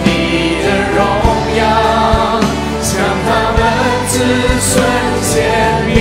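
Live worship singing: a male lead singer, with other voices joining, sings a slow Mandarin worship song over a band accompaniment with a soft, regular drum beat.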